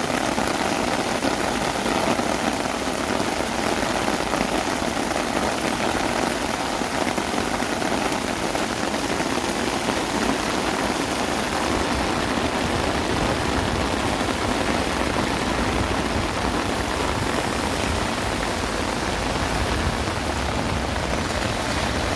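Heavy rain falling steadily: an even, dense hiss of drops hitting surfaces, with a low rumble coming up about halfway through.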